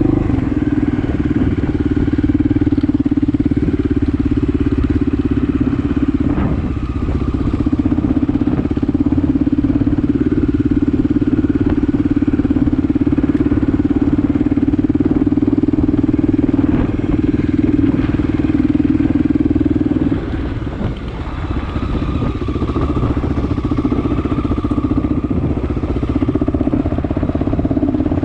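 Honda XL600R's single-cylinder four-stroke engine running under way at a steady pace. The engine note drops away briefly about twenty seconds in, then picks up again.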